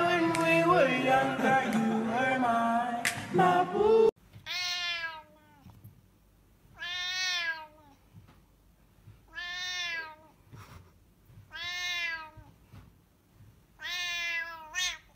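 A song with singing plays for the first four seconds and then cuts off abruptly. A long-haired point-coloured cat then meows five times, about two and a half seconds apart. Each meow is drawn out for about a second and rises then falls in pitch.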